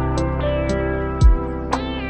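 Background music led by a plucked guitar, with a steady beat and a deep thump about a second in.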